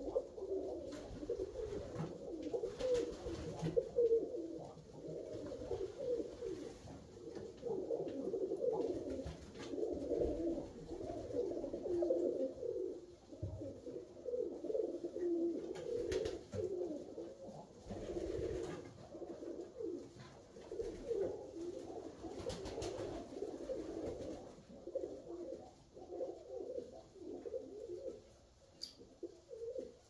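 Alföldi-Körösi tumbler pigeons cooing: several birds overlapping in near-continuous low cooing, with a few faint clicks.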